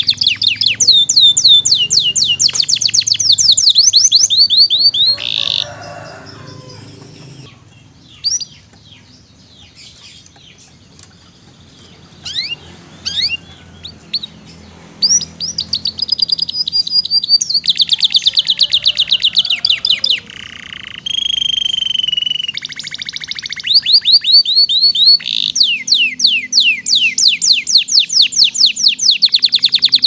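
Domestic canary singing long runs of rapid trills, each a fast string of repeated high falling notes. The song drops away to a few scattered notes for several seconds about a fifth of the way in, then resumes and carries on to the end.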